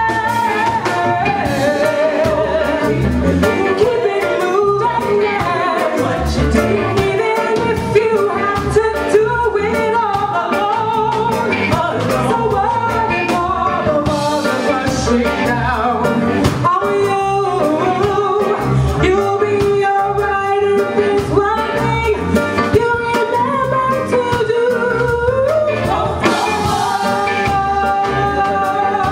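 Live reggae band playing over a steady beat, with a lead vocal singing the melody.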